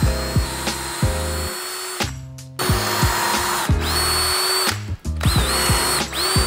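Cordless DeWalt drill driver boring dowel holes into the corners of a pine frame: a steady high motor whine that stops about two seconds in and again near five seconds, then spins back up. A music track with a regular beat plays underneath.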